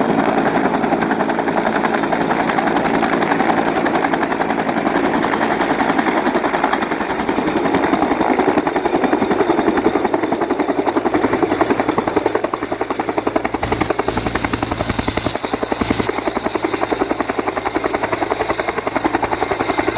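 Bell 205 helicopter close by, its two-bladed main rotor beating rapidly over the steady whine of its turbine engine. The whine drops slightly in pitch about halfway through.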